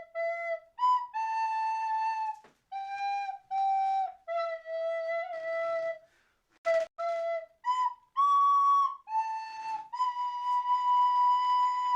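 Background music: a solo flute playing a slow melody of held notes with short breaks between phrases, ending on a long sustained note.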